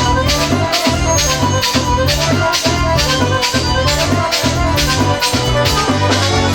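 Live band playing an instrumental passage: an accordion melody over a bass line and a steady percussion beat of about three strokes a second.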